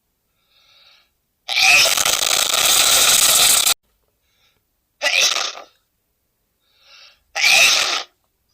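A man sneezing three times: first a long, drawn-out sneeze, then two short ones, with faint intakes of breath before them.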